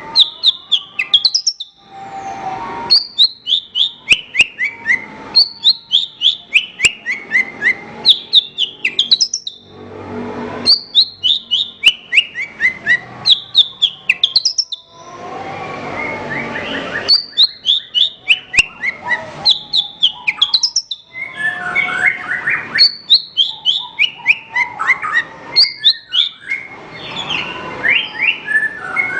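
A branjangan (Horsfield's bush lark) singing: a run of quick chirps that step down in pitch, repeated phrase after phrase about every two to three seconds, with rougher, raspy stretches between phrases.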